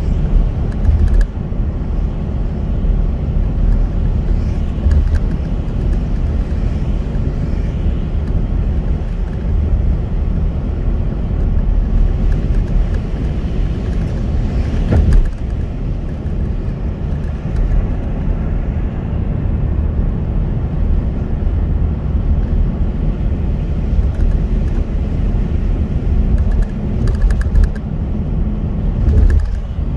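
Steady low rumble of a car driving on a wet road, heard from inside the cabin, with a hiss of tyres on the wet surface. There is a brief louder swell about halfway through.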